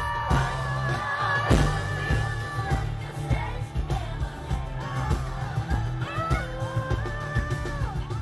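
Live pop music: women's voices singing long held notes with vibrato over a heavy, steady bass beat.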